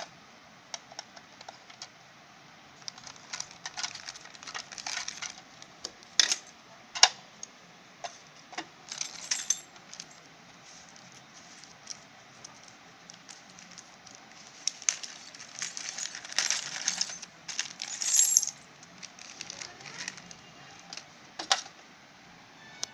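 Small sewing-machine accessories (plastic bobbins, presser-foot parts, a needle packet, a small tool) clicking and clattering as they are handled and set down on a hard stone floor, with rustling bursts from the clear plastic accessory bag.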